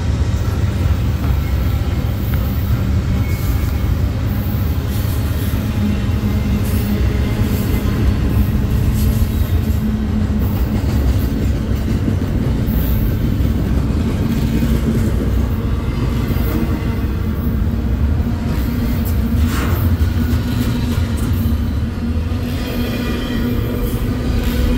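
Union Pacific freight train rolling past: a steady, heavy rumble of cars on the rails, with thin high wheel squeals near the end.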